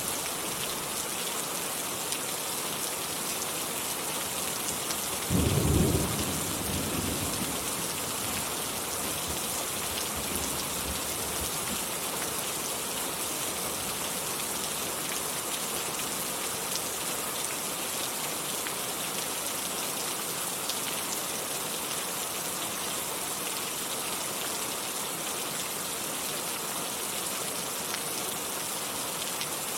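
Steady heavy rain falling, with a single short rumble of thunder about five seconds in that fades out over a couple of seconds.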